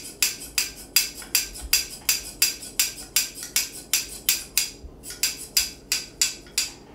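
Trimming of an Airedale terrier's wiry coat: quick, crisp clicks of the hair being worked, about three to four a second in an even rhythm, stopping just before the end.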